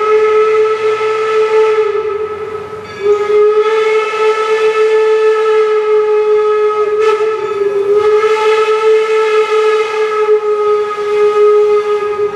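Single-chime steam whistle of Northern Central Railway 4-4-0 No. 17 blowing two long blasts: the first ends about two seconds in, and after a short break the second is held through to the end, with a slight sag in pitch partway.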